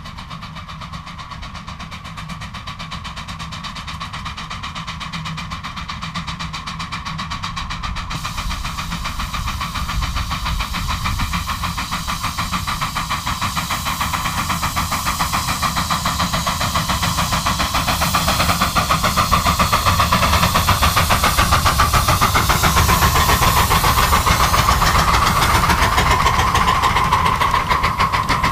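A 7½-inch-gauge ride-on miniature train approaching, its locomotive running with a rapid, even beat that grows steadily louder and is loudest over the last ten seconds.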